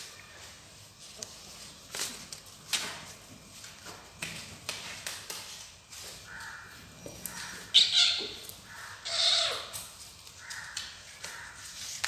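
Cats scuffling on a tile floor: paws and claws tapping and scraping in short clicks. From about six seconds in comes a string of short animal calls, loudest around eight seconds.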